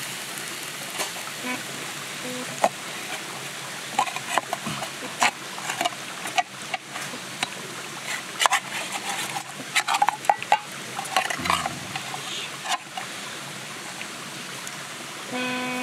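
A metal fork clinking and scraping against an aluminium pan while grilled chicken is turned over in sweet soy sauce. The clicks are scattered and thickest in the middle, over a steady hiss.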